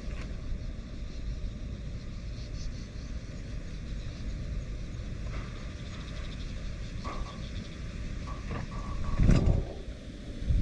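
Strong typhoon wind buffeting the microphone as a steady low rumble, with a louder blast about nine seconds in.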